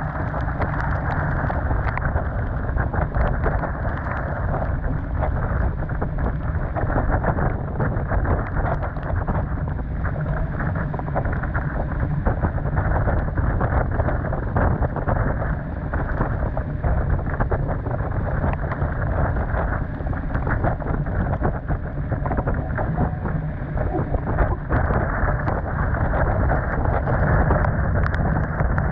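Storm wind buffeting the microphone on a sailboat in a severe squall, with rain and spray spattering on the deck and gear. A loud, steady rumble with many small ticks, no letting up.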